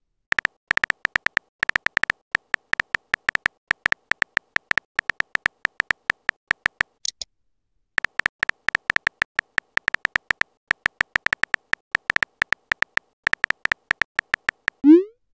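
Phone keyboard typing sound effect: rapid beeping clicks, several a second, as a chat message is typed, pausing briefly after a short high chirp about seven seconds in. A rising pop near the end marks the message being sent.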